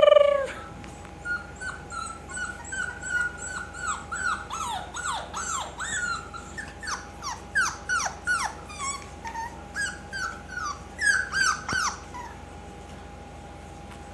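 Bulldog-hybrid puppies whimpering and squealing: many short, high calls, often falling in pitch and overlapping in the middle, that stop about twelve seconds in.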